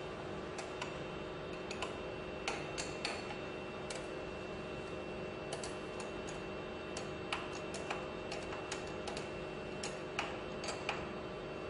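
Irregular sharp clicks and taps of metal tools and fittings being worked by hand on a progressing cavity pump during reassembly. They come singly and in quick pairs or triples over a steady low hum.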